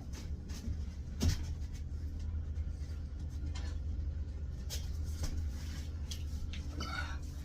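Scattered clicks and knocks of plumbing tools and fittings being handled, the sharpest about a second in, with a short scrape near the end, over a steady low hum.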